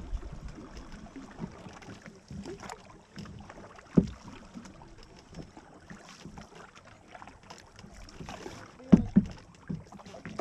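Canoe paddles working forward strokes: one sharp stroke sound about four seconds in and three close together near the end, over a faint background hiss.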